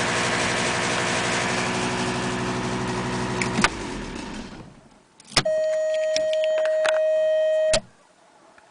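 Audi A6 2.5 TDI V6 diesel engine running with the ticking noise that was traced to a sheared key on the crankshaft timing-belt sprocket: the cam was 6–8 degrees advanced and the inlet valves were touching the pistons. Past halfway there is a click, and the engine is switched off and runs down. After that comes a steady electronic tone of about two and a half seconds, cut off with a click.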